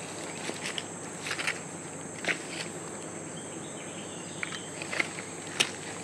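Irregular footsteps crunching on the forest floor, about half a dozen steps, over a steady high-pitched insect drone.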